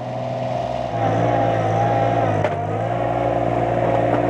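Compact skid steer engine running steadily under load, getting louder about a second in, with a brief click midway.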